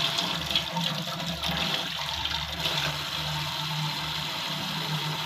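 Tap water running steadily through a flexible bellows faucet extender with a shower-style spray head, splashing into a steel sink. The extender is a splash guard meant to keep the spray off clothes.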